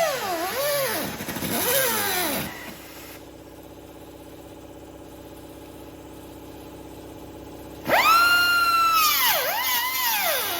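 Ski-Doo 850 E-TEC two-stroke twin snowmobile engine revved in quick blips, its pitch rising and falling. It drops to a steady idle for about five seconds. Near the end it is revved hard again, with two more rises and falls.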